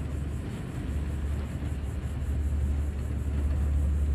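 Diesel truck engines running with a steady low drone that grows slightly louder about a second in.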